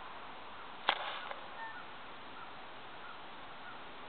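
Faint steady outdoor background hiss with a single sharp click about a second in, followed by a few faint short chirps.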